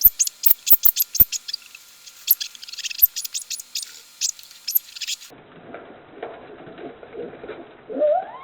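Polar bear cub vocalizing: a fast run of sharp, very high clicks and squeaks, then, after a cut, a squeal that rises steeply in pitch near the end.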